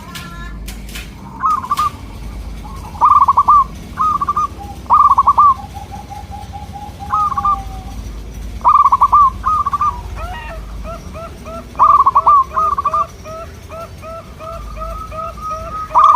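Zebra doves (perkutut) cooing: loud short phrases of rolling coos, repeated every second or two, with quieter answering notes. About two-thirds of the way in, a quieter fast string of short notes starts up under the coos and runs on.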